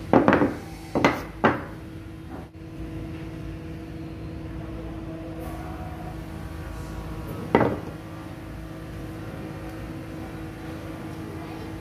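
Claw hammer striking a wood chisel, several sharp knocks in the first second and a half as the chisel chops into the wood. One more knock about seven and a half seconds in, over a steady hum.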